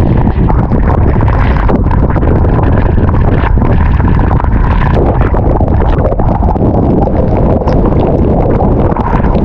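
Strong storm wind buffeting the microphone: a loud, steady rumble with crackle.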